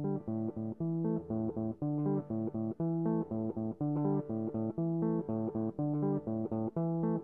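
Background music: a guitar riff of quick, separate plucked notes.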